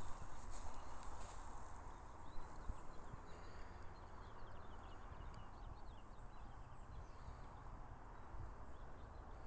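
Faint outdoor ambience: a low, rough background noise with faint high bird chirps, including a quick run of chirps through the middle.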